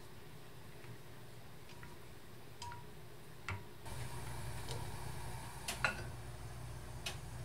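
Wooden chopsticks ticking against a glass bowl while beating eggs: light, scattered clinks over a low hum. The hum grows louder about four seconds in, and a few sharper clinks follow near the end.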